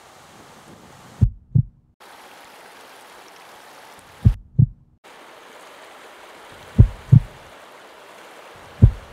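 A slow heartbeat: four deep double thumps, one pair every two to three seconds, louder than everything else. Under it runs the steady rush of a shallow stream over rocks, which cuts out briefly twice.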